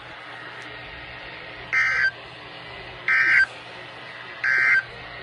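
Emergency Alert System end-of-message signal: three short bursts of the warbling digital data tone, about 1.4 s apart, over steady radio hiss, marking the end of the alert message.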